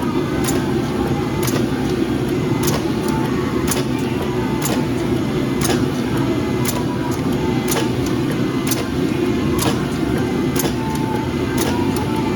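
Forging equipment running with a steady low roar, with a sharp tick about once a second.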